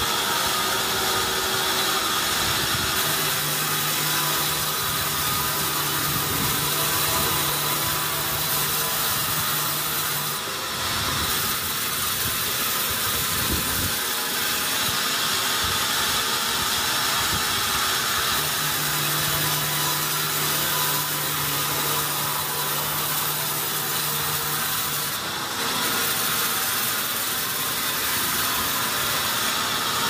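Vertical band sawmill blade cutting lengthwise through a large pine beam on the log carriage: a steady, loud sawing noise over the machine's running hum. A low hum comes in twice for several seconds, and the noise dips briefly twice.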